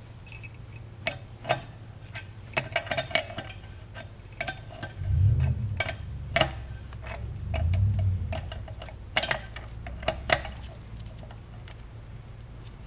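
Metal tools and compressor pump parts clinking and tapping at irregular moments during hand reassembly, with two short low rumbles of handling noise about midway.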